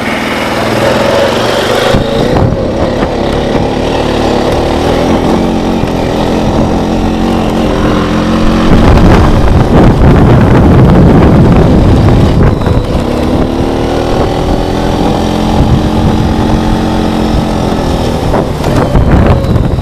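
Four-wheeler (ATV) engine running while riding, its pitch rising and falling with the throttle. Strong wind buffets the microphone throughout, loudest a little before halfway.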